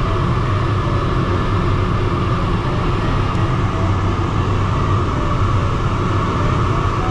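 Steady rush of air and low rumble inside the cockpit of a DG303 glider in flight, with faint short beeps now and then.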